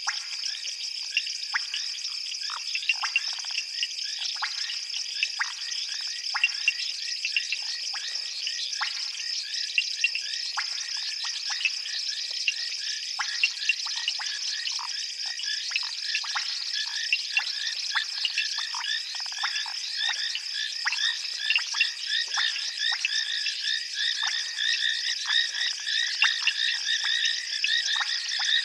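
A dense night chorus of frogs calling over one another in many short, rapid calls, over a steady high insect trill.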